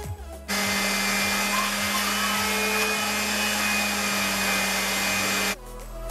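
Electric sander running steadily on a pine countertop, with a steady low hum under the hiss of sanding. It starts about half a second in and cuts off suddenly near the end, over background music.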